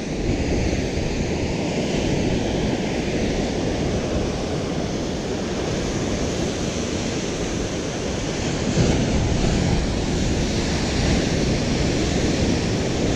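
Ocean surf breaking and churning against the rocks at the foot of a sea cliff, a steady rush with one stronger surge a little past halfway. Wind buffets the microphone.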